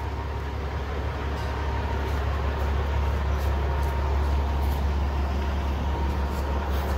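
Heavy diesel truck engine idling: a steady low rumble.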